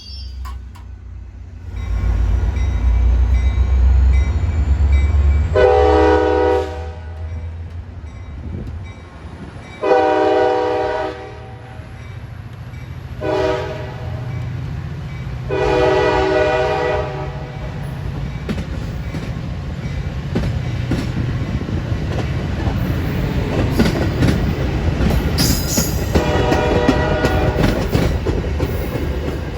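Metra commuter train horn, a multi-tone chime, sounding the grade-crossing signal over a low rumble: two long blasts, a short one and a long one. The train then passes with rail clatter building steadily, and the horn sounds once more near the end.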